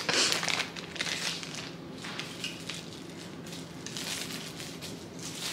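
Crinkling and rustling of packaging being handled, loudest at the start and then fainter irregular crackles: a pair of sunglasses being taken out of its wrapping.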